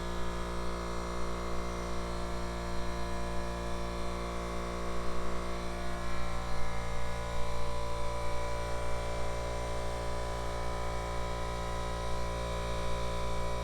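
Steady electrical hum made of many fixed tones, with a slight rise in level around the middle.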